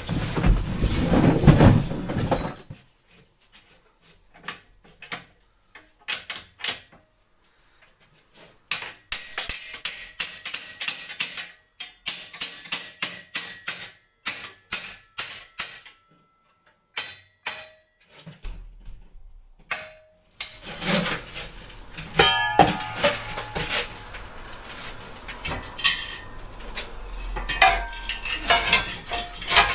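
Irregular metal clanks, clinks and knocks of steel Acrow props being set up and adjusted against a brick wall, coming in bursts with quiet gaps between them and busier from about two-thirds of the way in.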